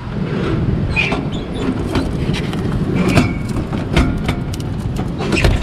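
Clatter at a drinks vending machine's delivery bin: the push-flap swinging and plastic bottles knocking as a hand pulls them out. There are many small clicks and knocks over a low rumble, with louder knocks about four seconds in and near the end.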